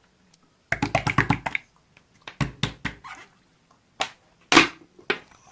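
Handling noises: a quick run of taps and clicks about a second in, then a few single taps.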